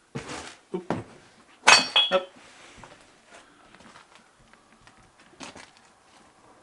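Loose household junk knocking and clinking as it is bumped: a few sudden knocks, then the loudest clatter about two seconds in with a short metallic or glassy ring, and a few faint clicks later on.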